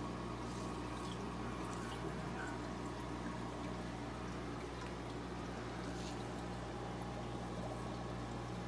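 Aquarium air stones bubbling steadily in the tanks, over a constant low hum.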